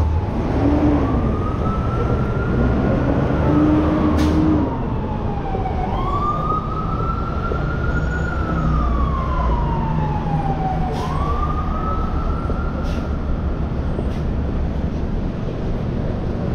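Emergency-vehicle siren wailing slowly, each cycle rising, holding high, then gliding down, about three times over, over the low rumble of city traffic.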